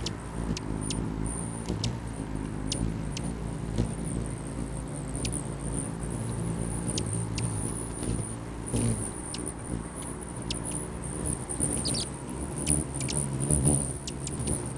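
Hummingbirds, among them rufous hummingbirds, hovering close at a nectar feeder. Their wings make a low, wavering hum, and short sharp chip calls come at irregular intervals, several of them clustered near the end. A steady thin high tone runs underneath.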